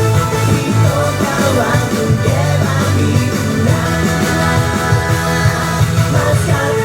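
Recorded pop-rock song with a singing voice and a steady beat, played as backing music for a dance routine.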